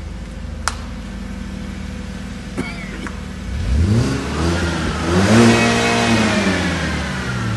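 White BMW 3 Series coupe's engine idling, then revved twice, the pitch rising and falling back each time, first about three and a half seconds in and again about five seconds in. A single sharp click comes just under a second in.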